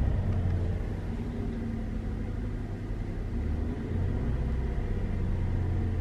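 Chevrolet Traverse V6 engine held at raised revs, around 1,500 to 2,000 rpm, running smoothly with no misfire now that its bad spark plugs have been replaced. Its level dips slightly about a second in and picks up again near four seconds.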